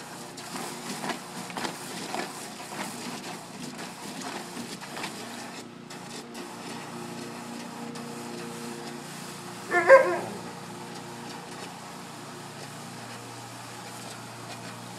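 Malamute splashing and pawing at the water in a plastic kiddie pool in irregular strokes, with one short dog bark about ten seconds in.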